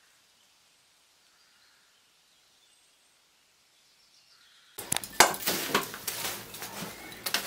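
Near silence with faint bird chirps, then about five seconds in a loud run of clinks and clattering starts abruptly, metal and wood being handled at the fire.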